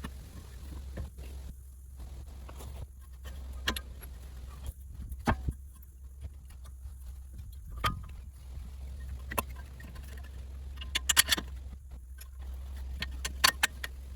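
Scattered sharp metallic clicks and clinks of hand tools and parts being handled during work on a car's front wheel hub, with a quick flurry of clinks about eleven seconds in and another near the end, over a steady low hum.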